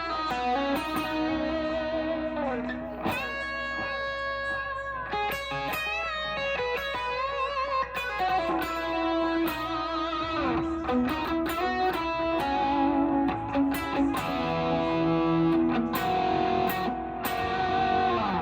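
2017 Gibson SG electric guitar played through a Derailer pedal, a Benson preamp and a 1965 Magnatone M2 amp: a run of single notes and chords, some held with vibrato and a few bent.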